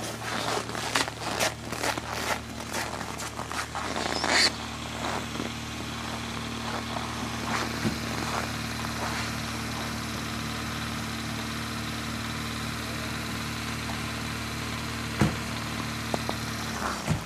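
Vehicle engine idling with a steady low hum that cuts off just before the end. Sharp clicks or crunches come in quick succession over the first four seconds or so, and there is one knock later on.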